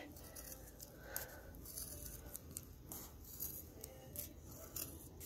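Pinking shears cutting through the edge of a leather strip: faint, repeated snips about twice a second.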